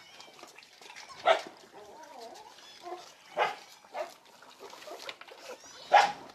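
Young puppies yelping and whining while jostling at a feeding bowl: several short, sharp yelps, with thin whimpers and squeaks between them.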